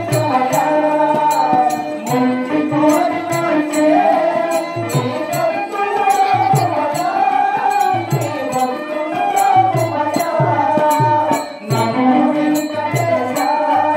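Indian stage-drama music: an ornamented, wavering melody over a steady drum beat, with sharp bright ticks keeping time.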